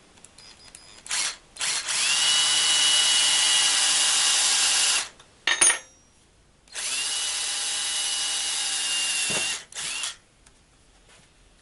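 Electric drill with a cobalt bit boring a small hole through the stainless steel case of an outboard lower-unit oil seal. Two brief blips come first, then two steady runs of a few seconds each, each rising in pitch as the drill spins up. A sharp click falls between the runs, and a short final blip comes near the end.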